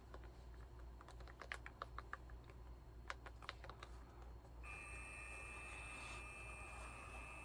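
Handheld label maker: its small keys are clicked in a quick irregular run, then its print motor starts a steady whir about two thirds of the way through as a label feeds out.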